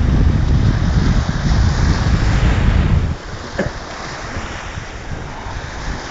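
Wind buffeting the microphone over small waves washing onto the shore. The wind rumble drops away about three seconds in, leaving the quieter wash of the surf.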